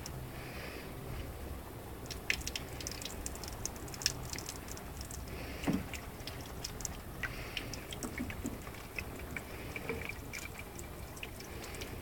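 Water dripping and trickling from a rain barrel tap into a small plastic watering can, a quick irregular patter of drops, with a few louder knocks as the can is handled.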